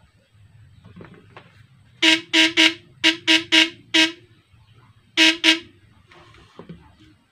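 Battery-powered homemade fish shocker buzzing in short bursts as it is switched on and off, nine times in groups of three, four and two. It is a loud, steady-pitched, horn-like buzz, a sign that the repaired unit is working again.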